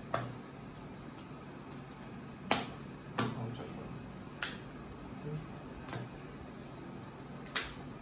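Sleeved trading cards tapped and set down on a playmat-covered table: about five sharp clicks at irregular intervals, the loudest about two and a half seconds in and near the end, over a low steady hum.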